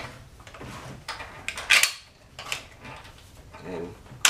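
Plastic pieces of a 3D-printed PLA puzzle box clicking and clattering as it is handled and worked, with one sharp click a little under two seconds in.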